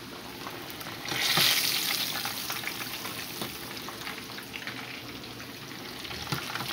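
Fish frying in a pan of hot grease: a steady crackling sizzle with scattered pops, swelling sharply about a second in and then easing back.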